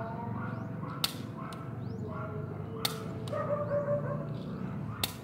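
Three sharp snaps from a Japanese-made toy Walther P38 BB pistol being fired, about two seconds apart.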